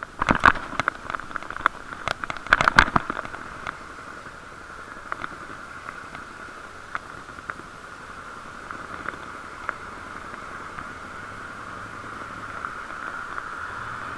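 Muffled riding noise heard through a waterproof action-camera case: a steady hiss, with a burst of sharp knocks and rattles in the first three seconds, then scattered single ticks.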